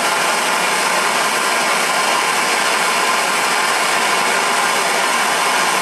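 Handheld gas torch flame hissing steadily, heating the end of a steel knife tang.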